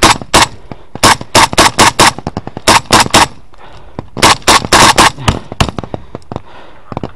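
Close-range rifle fire in quick strings of shots, several groups of three to six cracks in rapid succession with short pauses between. The shots thin out and get fainter after about five seconds, with scattered fainter gunfire in between.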